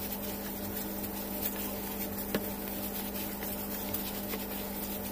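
A hand squishing and mixing mashed boiled potato with seasoning and chopped celery in a plastic bowl, faint under a steady low hum, with one light knock about two seconds in.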